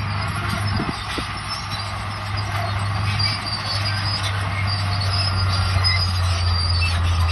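Crawler bulldozer at work: a steady low diesel engine drone with high metallic squealing from the steel tracks running over it.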